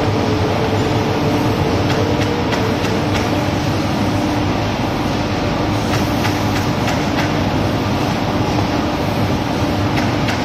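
Automatic partition assembly machine for corrugated cardboard dividers running: a loud, steady mechanical noise with a constant hum, and scattered light clicks and clacks from the mechanism.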